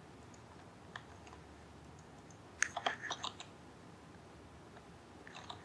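Keys pressed on a computer keyboard: a single faint click about a second in, a quick cluster of clicks a little before the middle, and a few more near the end, over faint room hiss.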